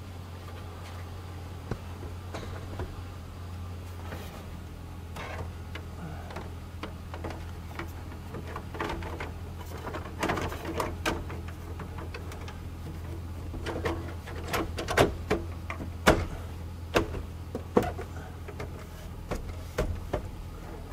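Plastic dash bezel of a Chevy Silverado being pressed back on and its clips snapped into place: scattered clicks and knocks, busier in the second half, over a steady low hum.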